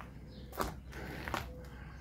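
Footsteps of a person walking on a paved yard, a few soft steps, the clearest just over half a second in and again near three-quarters of the way through, over a low steady rumble.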